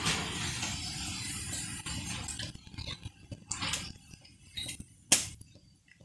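Thick corn batter poured from a plastic jug into a green corn-husk pouch, then the husk rustling and crinkling as it is folded closed, with scattered small clicks and one sharp clink about five seconds in.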